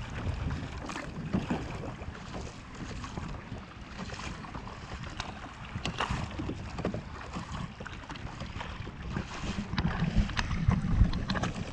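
Kayak paddle strokes splashing through choppy sea water, with wind rumbling on the microphone and gusting louder near the end.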